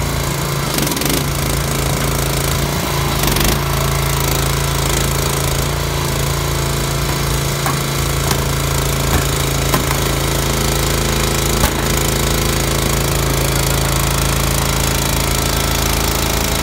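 Skip truck's engine running steadily while its hydraulic lift arms raise three loaded bulk bags on chains, a constant rattling drone. A few light clinks a little past the middle.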